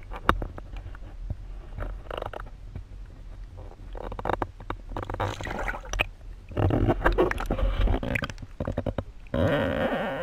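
Muffled underwater sloshing and gurgling heard through a submerged camera as a hand and a bass move in shallow water, over a steady low rumble with scattered clicks and knocks. Several longer surges of churning water come in the second half, the last one near the end.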